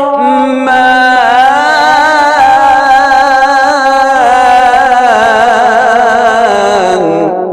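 A man's voice in melodic Quran recitation, drawing out the word "ar-Rahman" in one long ornamented phrase that wavers up and down in pitch. It trails off into echo near the end.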